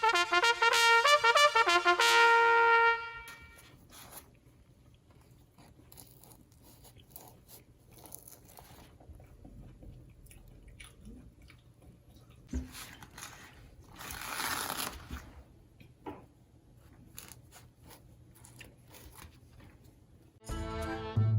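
A short brassy musical sound effect, then quiet crunching and chewing as a pan-fried hotteok is bitten and eaten, in scattered short strokes. Music comes in again near the end.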